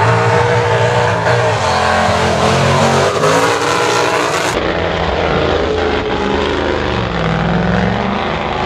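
Lifted mud truck's engine revving hard at full throttle, its pitch rising and falling, with an abrupt change partway through.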